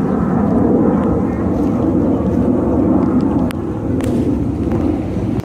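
Jet airliner's engines, a loud steady rumble.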